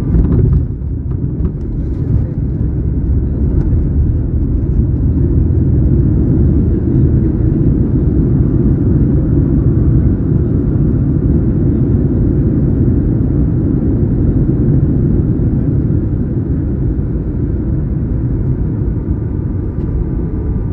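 Boeing 737-900ER touching down, a jolt right at the start, followed by a heavy steady rumble heard inside the cabin as the airliner rolls out and slows on the runway. The rumble builds over the first few seconds.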